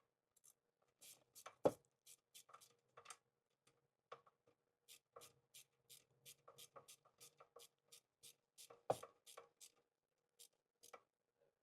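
Ratchet wrench clicking faintly as the exhaust mounting nuts are tightened, in short runs of clicks that come about three a second through the middle, with a couple of sharper knocks of metal on metal.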